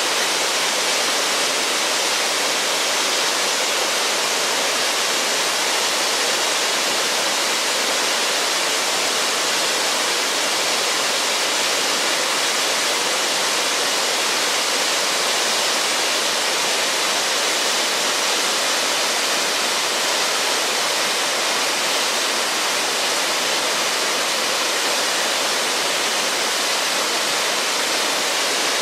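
Waterfall cascading over a rock ledge: a steady, unbroken rush of falling water.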